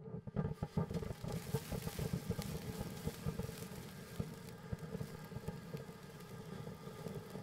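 Consumer fountain firework spraying: a loud, dense hiss full of rapid crackles, with a steady buzzing drone from its blue fish effect, the sparks that swim and dart as they burn. It starts suddenly on ignition and keeps up at a steady level.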